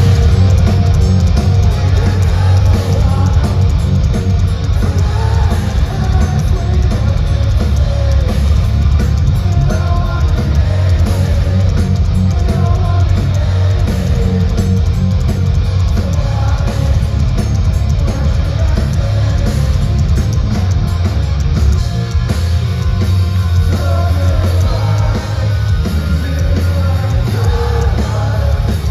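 Live rock band playing loudly, with electric guitars, bass, drum kit and singing, heard from inside the crowd close to the stage and strongest in the low end.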